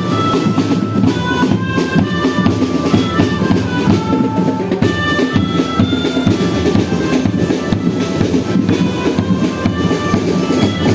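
Marching band playing: drums and percussion keep a dense, steady beat under a melody of held notes that step up and down.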